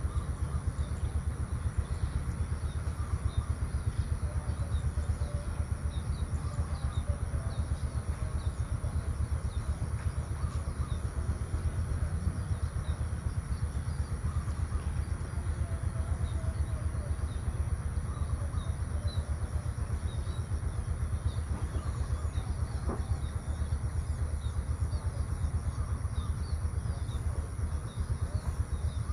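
Rural outdoor ambience dominated by a steady low rumble, with scattered faint bird chirps and a constant high, thin whine above them.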